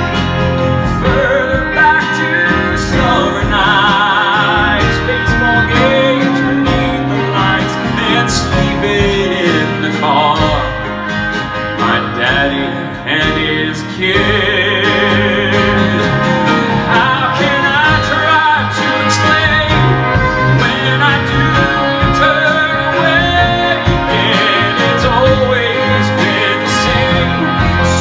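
Live acoustic band playing in a country-folk style: acoustic guitars, fiddle, piano and upright bass, with some singing and no clear lyrics. The music eases off briefly about ten seconds in and builds back about fourteen seconds in.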